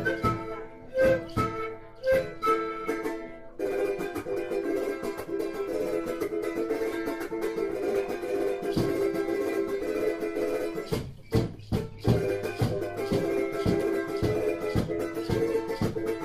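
Andean folk music on a charango, strummed in a quick, even rhythm of chords, with a short break about eleven seconds in.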